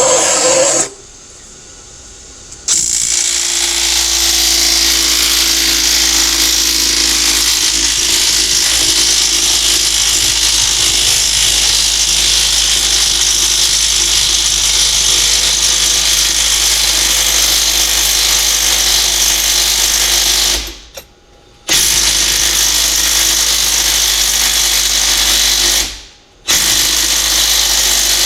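Power tool running in long stretches, with a loud steady hiss and rattle and a low hum beneath; it starts about three seconds in and cuts off briefly twice near the end, as if the trigger were let go.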